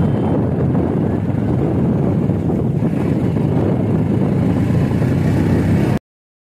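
Wind rushing over the microphone of a moving 90cc motorcycle, with the engine's drone underneath. The sound cuts off suddenly near the end.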